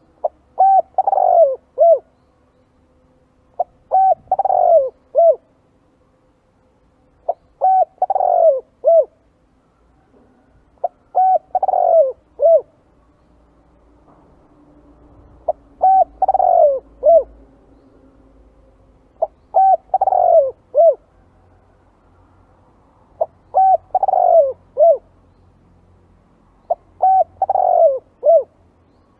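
Spotted dove cooing: eight repeated calls of a few coos each, about one every three and a half seconds.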